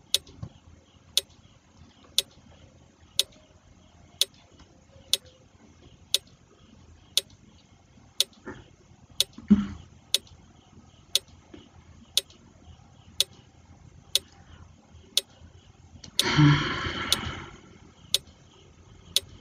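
Quiz countdown timer sound effect ticking like a clock, one sharp tick a second, counting down the 20 seconds allowed to answer. A short voice-like sound comes through about sixteen seconds in.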